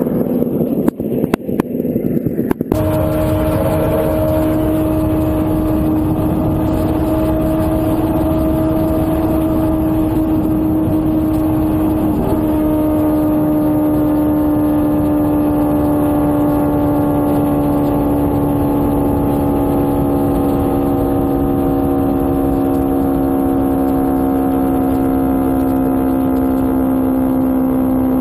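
Land-speed streamliner motorcycle's engine running at high speed with wind rush: a steady high drone that slowly drifts lower in pitch. In the first couple of seconds there are a few sharp knocks and crackles before the drone sets in.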